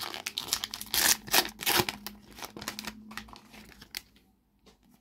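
A Panini FIFA 365 card sachet being torn open and its wrapper crinkled: dense crackling for about two seconds that thins out and stops about four seconds in.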